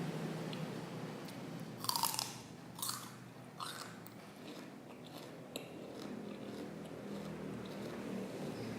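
Raw celery stalk being bitten and chewed close to the microphone: three loud crunches in quick succession about two seconds in, then quieter chewing.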